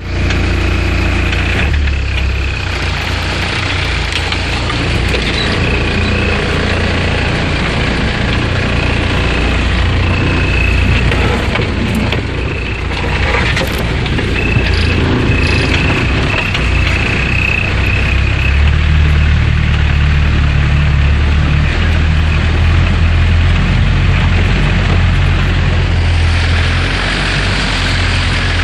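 UAZ-469 off-roader's engine running steadily under load as it fords a river, with water churning and splashing against the front of the vehicle. A thin high whine comes and goes during the first two-thirds.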